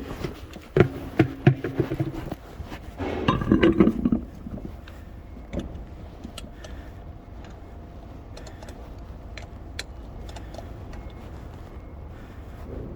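Metal clinks and knocks of lug nuts and wheel tools during a tyre change, busiest in the first four seconds with a dense run of rattling about three seconds in. After that come scattered light ticks over a low steady hum.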